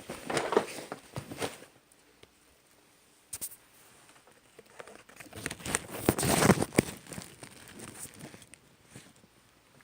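Handling noise of a camera being tucked into a backpack: fabric rustling and small knocks close to the microphone, in two bouts, one at the start and a louder one from about five to seven seconds in.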